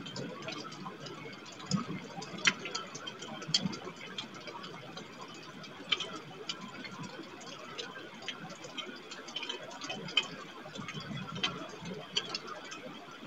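Raindrops ticking irregularly on the outdoor webcam's housing, a few sharp ticks a second over a steady hiss of rain and wind.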